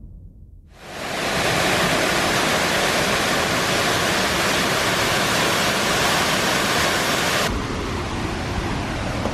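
Waterfall pouring over rock: a steady, full rush of water that starts about a second in. Near the end it gives way to a slightly softer, thinner rush.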